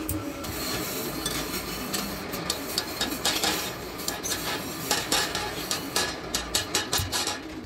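Steel clutch plate and tools clinking and scraping as they are handled, then a quick series of light hammer taps on the clutch disc hub, about five a second, near the end.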